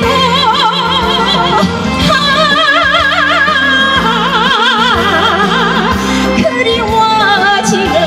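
A woman singing a trot song live, holding long 'ah~ ah~' notes with a wide, even vibrato and leading into the words '그리워 지는', over an instrumental backing with a steady bass line.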